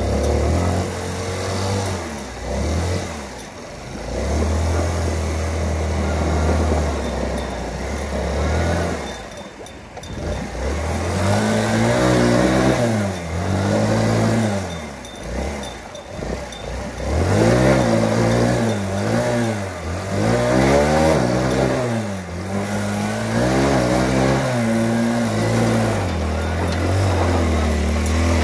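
Motorcycle engine running in a shallow river: a steady low idle with a couple of dips, then from about twelve seconds in it is revved again and again, each rev rising and falling, as the bike is worked through the water on a hard crossing.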